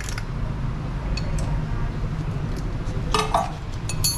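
Metal tools and parts clinking and tapping as a coilover shock is worked on in a spring compressor: scattered light clinks, with a louder cluster of ringing clinks about three seconds in. A steady low hum runs underneath.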